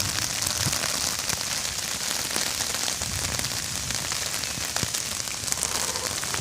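Steady rain falling: an even hiss of many drops with scattered individual drop ticks.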